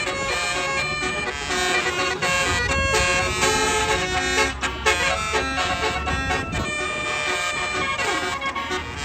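Tour bus's Basuri telolet horn playing a melody, several horn tones switching pitch in quick succession. A bus engine runs low underneath.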